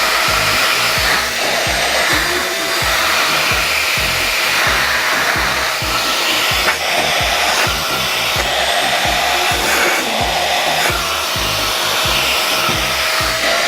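Hand vac detached from a corded 600-watt stick wet/dry vacuum, running steadily at full power with a loud motor whine and airflow rush. Its pitch shifts slightly now and then.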